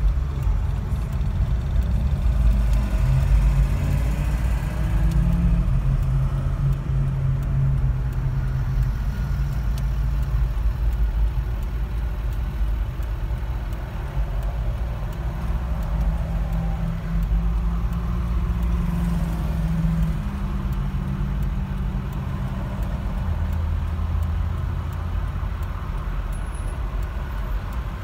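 Steady low engine hum and road noise heard from inside a car creeping along in slow traffic; the hum shifts in pitch a few times.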